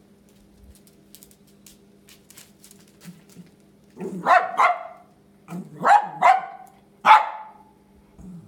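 Pomeranian barking sharply: five short barks, in two quick pairs and then a single, starting about four seconds in.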